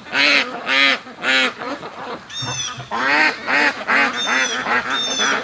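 A flock of domestic ducks quacking, many short quacks in quick succession and overlapping, with a few high, thin falling calls mixed in.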